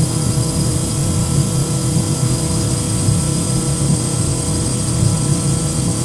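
Small quadcopter drone hovering: the propellers and motors make a steady buzzing whine with several held tones, without rising or falling.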